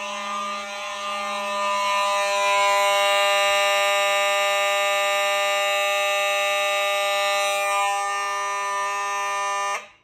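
Fire alarm horns, the loudest a Gentex GMS mechanical horn strobe, sounding a steady, continuous tone after a pull station is activated. The horn is really loud, louder from about two seconds in. It cuts off suddenly near the end as the alarm is silenced at the panel.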